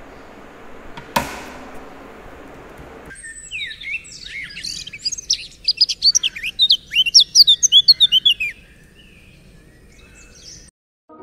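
Birds chirping: a quick run of many short, high chirps that builds to a dense, loud stretch and then stops, preceded by faint room hum with a single sharp click about a second in.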